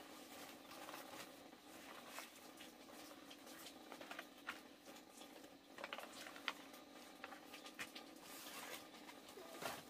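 Faint rustling and crackling of large dong leaves as they are picked up and laid out one by one, in short scattered crackles.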